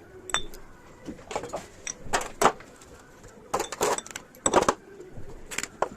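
Metal starter-motor parts and hand tools being handled on a workbench: irregular clinks, knocks and short scrapes, about half a dozen bursts.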